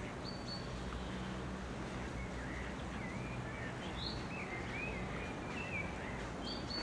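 Outdoor ambience: a steady low background hum with faint, short, high bird chirps scattered throughout.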